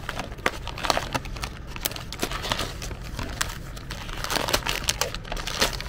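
Thin plastic packaging bag crinkling as it is handled and squeezed, a dense irregular run of crackles.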